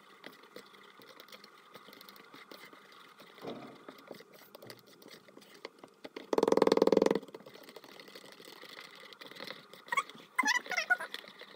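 A metal spoon stirring batter in a paper cup, with faint scraping and clinks. About six seconds in, a loud buzz lasts about a second, and near the end come a few brief gliding tones.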